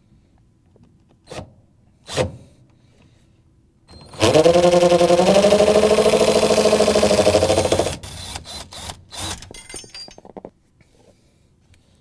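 Cordless drill drilling out the rivet that holds a refrigerator grill clip to the metal frame: after a couple of short knocks, the drill runs steadily for about four seconds, its pitch rising as it starts, then stops, followed by several short clicks and rattles.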